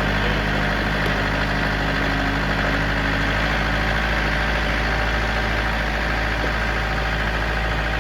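An engine running steadily at idle, an even drone with no change in speed.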